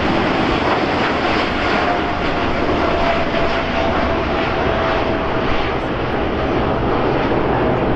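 Boeing 747-8's four GEnx-2B turbofan engines at takeoff power as the jet climbs away after lift-off: a steady, loud rush of jet noise with a thin whine that slowly falls in pitch.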